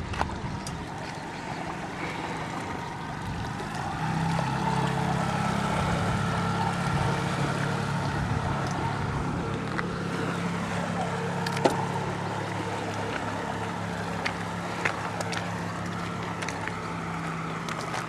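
Motorboat engine running at low speed close by, a steady hum that grows louder about four seconds in, with a few sharp clicks.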